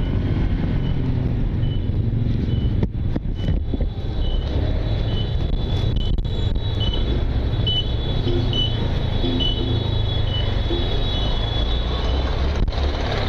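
Riding a Honda Click 150i scooter in slow city traffic: a steady rumble of engine, wind and surrounding vehicles. A faint, short high beep repeats a little more than once a second through most of it.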